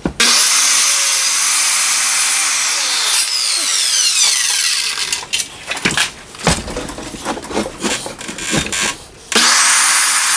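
Circular saw cutting into a wall. The motor runs loud for about four seconds and winds down with a falling whine, a few knocks and scrapes follow, and the saw starts up again near the end.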